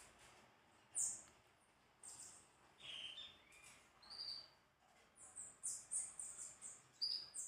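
Small songbirds chirping: short, high chirps scattered at first, then a quicker run of chirps over the last few seconds.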